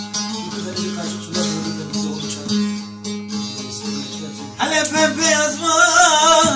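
Two bağlamas (Turkish long-necked saz) playing a folk tune over a steady low note. About four and a half seconds in, a man's voice comes in singing a türkü with wavering, ornamented notes, louder than the instruments.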